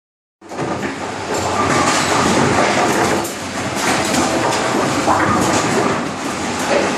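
AMF 82-70 pinspotter running: a steady mechanical clatter of its gears and drives, with wooden bowling pins clunking as the elevator wheel lifts them and drops them onto the turret feed.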